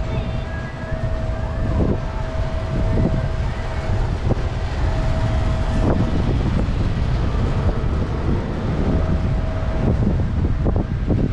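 City street sounds on a walking camera's microphone: a steady low rumble of wind buffeting the mic and passing traffic, with scattered knocks and a faint steady tone that stops near the end.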